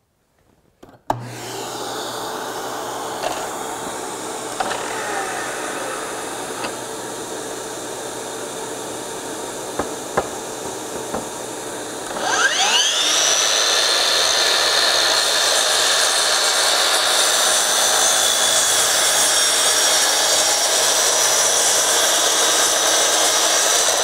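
A steady hum of running machinery starts suddenly about a second in, with a few light knocks. About halfway, the DEWALT FlexVolt 60V DCS781 12-inch sliding miter saw's motor spins up with a rising whine and runs loud and steady as the blade is lowered through a board for a 15-degree miter cut, starting to wind down right at the end.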